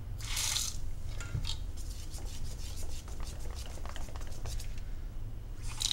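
Wire whisk scraping and rubbing against a stainless steel bowl while beating a thick batter, in quick repeated strokes. A short hiss sounds about half a second in and again at the very end.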